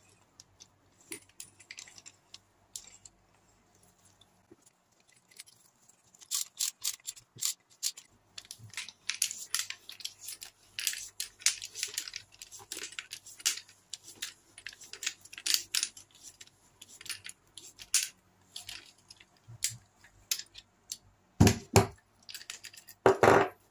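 Handling noise as an air cartridge is pushed and worked into a bicycle dropper post. After a few quiet seconds comes a busy run of small clicks, scrapes and glove rubbing, then two heavier knocks near the end.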